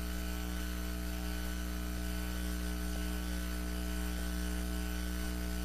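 Steady electrical mains hum with a faint hiss, constant in level, with no music or voice.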